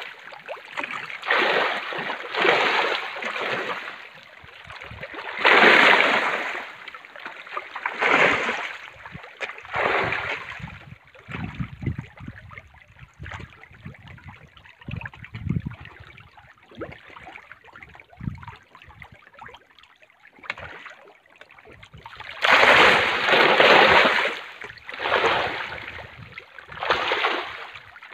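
Farmed fish thrashing at the surface of a floating cage, the water splashing in repeated bursts of a second or so, with a longer, louder bout of splashing near the end.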